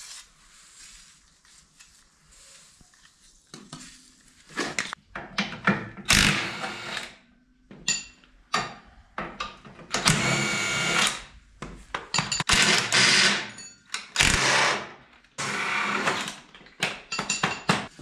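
Cordless DeWalt impact gun undoing bolts on a slurry agitator's shaft housing, running in a series of short bursts with pauses between, after a brief hiss of penetrating-oil spray at the start.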